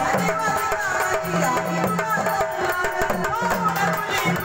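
Marathi gondhal folk song: a voice over rhythmic hand-drum percussion, running steadily.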